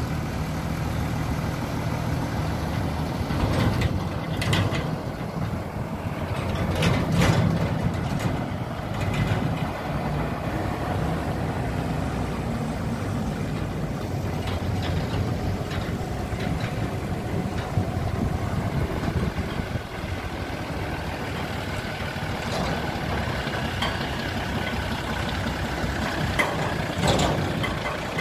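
Old Mercedes-Benz 1417 truck's diesel engine running steadily as the truck drives slowly along, with a few brief louder sounds along the way.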